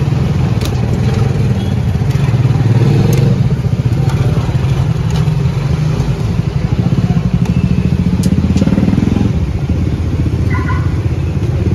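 A small engine running steadily close by, a low pulsing hum, with a few light metallic clicks of tongs against the steamer tray.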